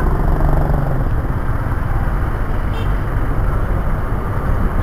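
Steady rumble of street traffic, with a low engine hum through the first second or so.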